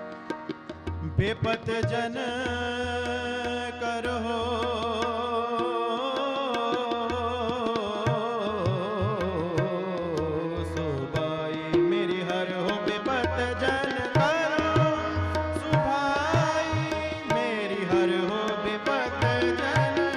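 Background music in an Indian style: tabla drumming under a wavering melodic line, running continuously.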